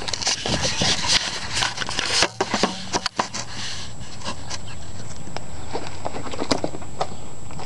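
2001 Chevy Blazer's 4.3-litre V6 idling steadily through a Pro Series muffler with a 2.5-inch outlet dumped before the rear axle, heard from under the truck. For the first three seconds or so there are rustles and knocks from the camera being lowered to the pavement.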